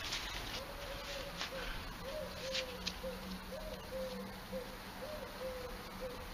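A pigeon cooing: a low phrase that rises and falls, repeated over and over.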